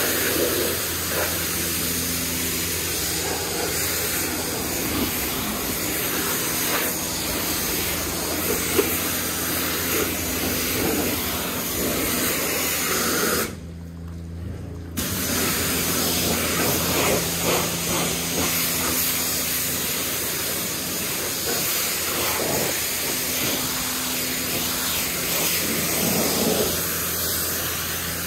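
High-pressure water spraying from a self-serve car wash wand onto a car: a loud, steady hiss, with a steady low hum underneath. About halfway through the spray stops for a second and a half, then starts again.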